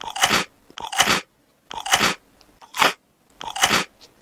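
Mouthfuls of a crunchy chocolate chip cookie being bitten and chewed: about five separate crunches, roughly one a second.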